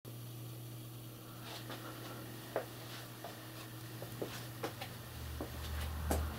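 Steady low electrical hum with a few scattered light clicks and taps, and a low rumble coming in near the end.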